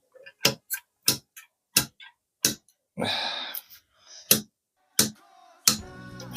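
Ratchet wrench clicking in slow single clicks, about two a second, as an already-loosened bolt is unscrewed from a motorcycle fork leg, with a short rustle about halfway through.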